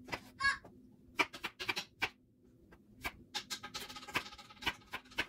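Chef's knife chopping a peeled vegetable on a wooden cutting board: a run of sharp, irregular knocks as the blade goes through and strikes the board. A brief high chirp sounds about half a second in.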